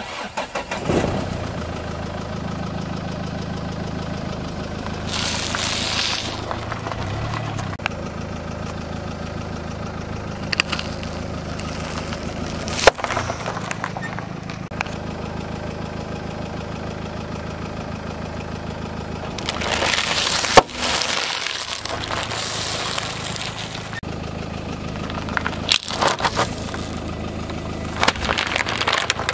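A car's engine idling while its tyre rolls slowly over one object after another, crushing them with crunching and crackling and several sharp cracks and pops.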